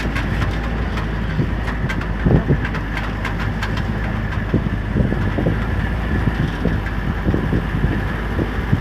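Small motorcycle engine running steadily as it rides a rough dirt farm track, with irregular knocks and rattles from the bumps.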